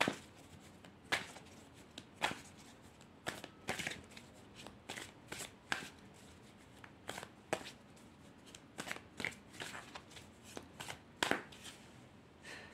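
A deck of Black Grimoire tarot cards being shuffled by hand: a long run of short, sharp card snaps and rustles at an irregular pace.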